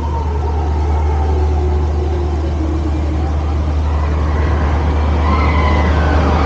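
Steady low rumble and rushing noise aboard a paddle steamer riverboat during the ride, with a few faint wavering tones over it.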